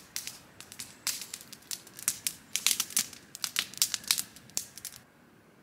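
Wood campfire crackling and popping, with irregular sharp pops several times a second that cut off abruptly about five seconds in.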